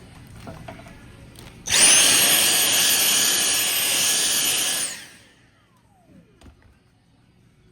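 A small power tool's high-speed electric motor starts abruptly, runs for about three seconds, then cuts off and winds down with a falling whine.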